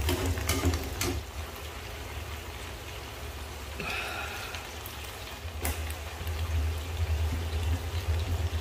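Water spinach simmering and sizzling in a frying pan, with a metal spatula scraping and clicking against the pan in the first second and a few more light clicks later. A steady low hum runs underneath.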